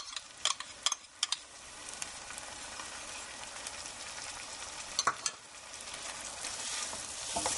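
An onion, butter and tomato-paste sauce sizzling in a frying pan as sour cream is scraped in from a measuring cup and stirred with a wooden spoon. A few sharp clicks of utensils against the cup and pan come in the first second or so, and two more about five seconds in.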